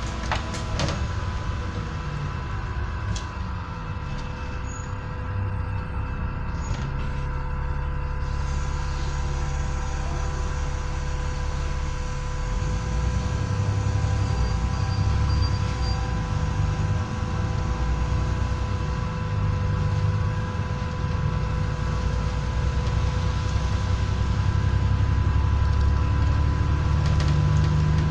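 Interior sound of an Alexander Dennis Enviro400 double-decker bus on the move: a low engine rumble whose pitch steps up and down several times as it changes speed and gear. A steady whine sits over it.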